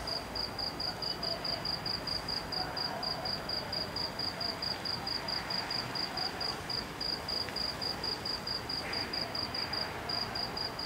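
A cricket chirping steadily outdoors at night, a high pulsed trill about four chirps a second, over a steady background hiss.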